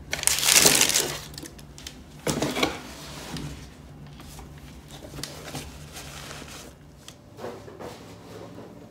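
Cardboard shoebox, tissue paper and sneakers being handled: a loud rustle of about a second near the start, a shorter one about two seconds in, then quieter scuffs and knocks.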